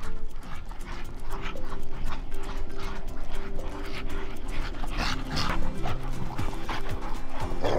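Background music with a steady run of notes, with dogs heard over it: Labradors and Weimaraners making short, breathy sounds while playing, loudest about five seconds in.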